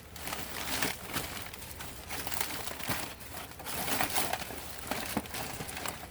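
Plastic bag crinkling and rustling as it is opened and rummaged through, with scattered light clicks of items being handled.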